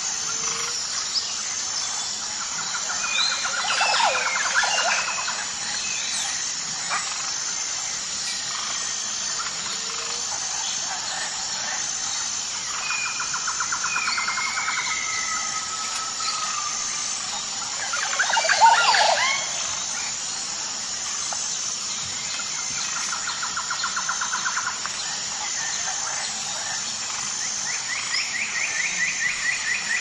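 Jungle ambience: birds calling with short whistles and rapid trills over a steady, evenly pulsing high buzz. One louder bird call with falling notes stands out a little past halfway.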